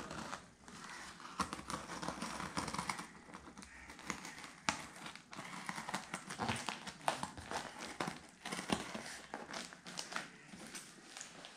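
Cardboard box being handled and worked open by hand: rustling and scraping of cardboard with many scattered sharp clicks and taps.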